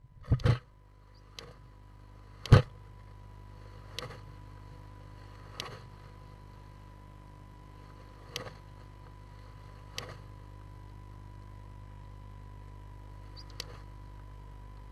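Great tit defending her eggs in a nest box with wing-beats and bill-snapping: about eight sharp knocks at uneven intervals, the loudest about two and a half seconds in. Under them runs a steady electrical hum with a thin steady tone from the nest-box camera.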